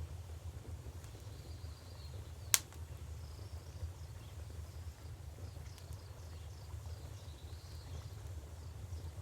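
Wood fire with a single sharp crackling pop about two and a half seconds in, over a steady low rumble of flowing river water. Faint high chirping comes and goes in the background.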